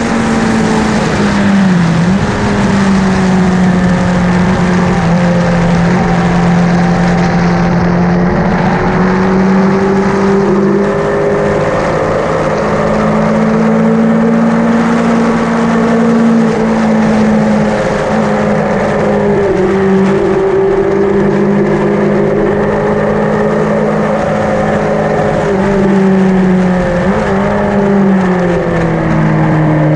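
Yamaha XJ900N's air-cooled inline-four engine running hard on track. It holds steady revs for stretches, and the pitch steps up and down several times as the rider works through the gears.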